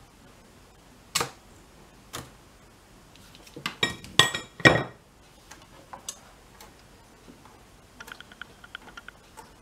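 Metal hand tools clicking and clinking on a workbench. Two sharp clicks come first, then a louder cluster of metallic clinks with a brief ring about four seconds in. A run of faint quick ticks follows near the end.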